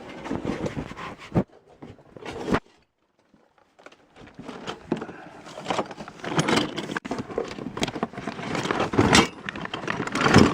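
Handling noise of loose hardware being sorted: irregular rustling and metallic clinks, broken by a short silence about three seconds in.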